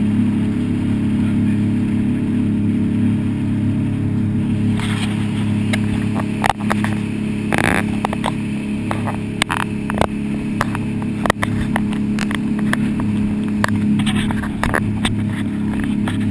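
Jet boat engine running steadily under way, a continuous low drone. From about five seconds in, irregular sharp knocks join it as the aluminium hull runs over choppy river water.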